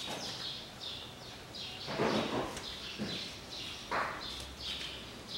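Small birds chirping: a continuous run of short, high, quick chirps. About two and four seconds in come two brief, louder handling noises as the power steering pump is set in place against the engine.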